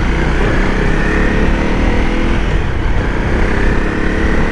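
Honda CRF250 Rally's single-cylinder engine running steadily under way, its pitch creeping slightly upward, over a low rumble of wind on the microphone.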